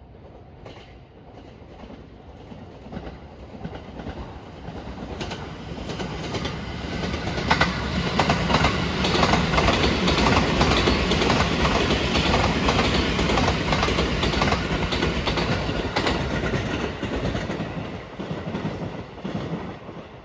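A 285 series Sunrise Express sleeper electric train passing at track level: the noise grows from faint over the first several seconds, stays loud for about ten seconds with the wheels clicking over rail joints, then dies away near the end.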